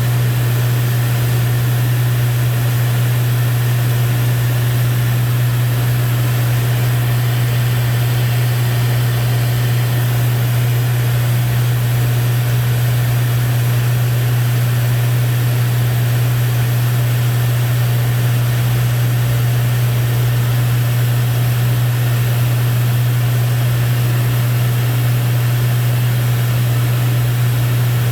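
Lancair IV-P in flight heard inside the cockpit: a steady, unchanging low engine and propeller drone under an even rush of airflow hiss.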